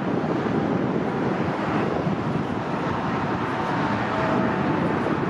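Boeing 777-300 twin-jet climbing out after take-off, its engines heard from the ground as a steady, even rush of jet noise with a faint hum in it.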